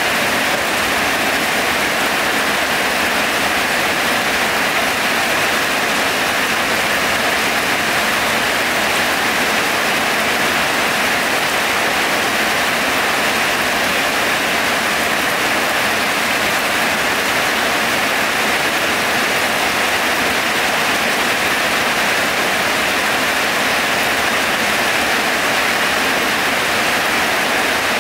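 Heavy rain falling: a loud, steady hiss of a downpour that does not let up.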